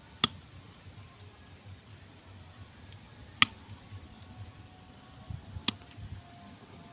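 Metal hand cutters snipping through sligi stems: three sharp snips a few seconds apart, the middle one loudest.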